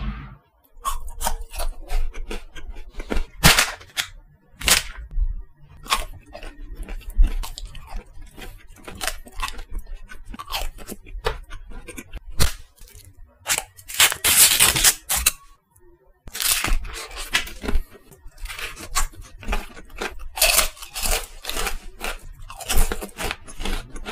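KitKat wafer bars being bitten and chewed close to the microphone: many sharp, separate crunches with chewing between them, and a longer crackling stretch about halfway through.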